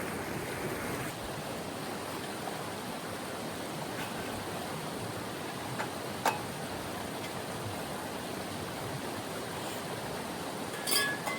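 Steady rushing of a mountain river, with a few short sharp clicks in the middle and a brief brighter sound near the end.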